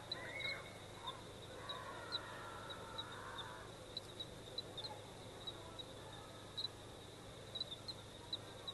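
Faint evening outdoor ambience: many short, high chirps repeating irregularly over a steady high hum, with a few bird calls in the first few seconds.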